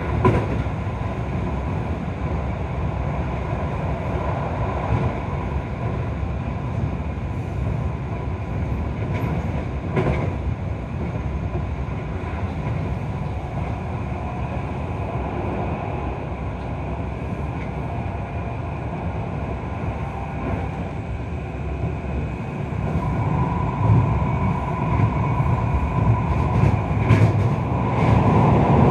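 Keio 5000-series train running, heard from inside the car: a steady rolling rumble with a faint steady whine, a few sharp clacks at wheel-rail joints, and the running noise growing louder over the last few seconds.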